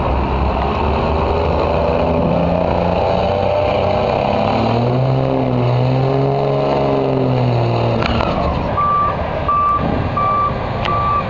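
Diesel pickup truck engine at full throttle pulling a weighted sled, loud and steady. Its pitch rises and falls as it passes, with black exhaust smoke showing under load. From about nine seconds in, a vehicle's reversing beeper sounds repeatedly, about once every 0.7 seconds.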